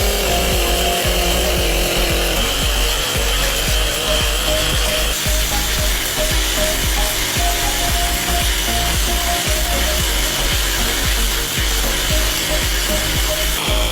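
Engine-driven abrasive rail tool running under load against a steel rail. It gives a loud, steady grinding noise, and its pitch wavers as the load changes.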